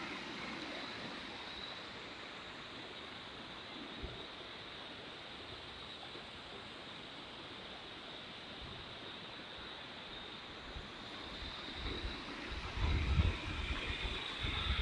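Faint steady outdoor noise, with wind buffeting the microphone in low rumbling gusts that start near the end.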